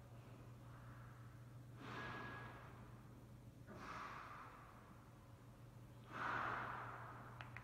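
A person's breathing heard close to the microphone: three soft, breathy exhalations about two seconds apart, the last the loudest, over a faint low hum.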